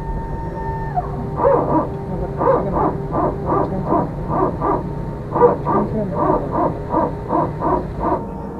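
Steady airliner cabin hum, overlaid from about a second and a half in until near the end by a run of short hoot-like tones, often in pairs, about two or three a second.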